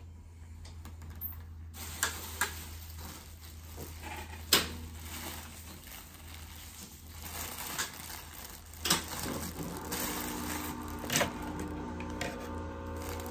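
Clear plastic packaging bag crinkling and rustling as it is handled, with several sharper crackles.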